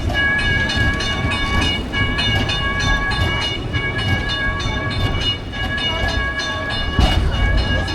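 Nostalgic tram on Istiklal Avenue rolling on its rails: a steady high whine over rapid clicking and a low rumble.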